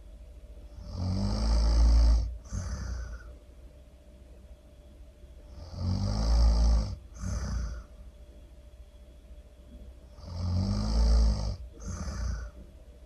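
A person snoring loudly: three snores about four and a half seconds apart, each a long rumbling snore followed by a shorter breath out.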